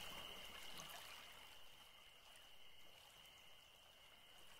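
Near silence: faint night-time ambience with light hiss and a steady high tone, slowly fading out.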